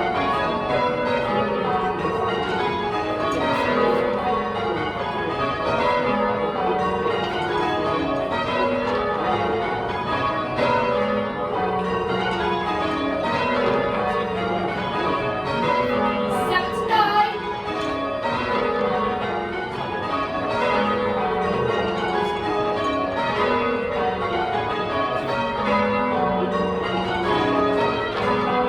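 A ring of ten John Taylor church bells change ringing, heard from inside the ringing chamber: rows of strikes step down in pitch from treble to tenor, over and over. The ninth and tenth, hung a level above the rest, come through faintly. There is a brief louder sound a little past halfway.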